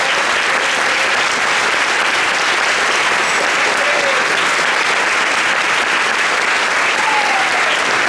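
Audience applauding steadily after a school jazz band's number.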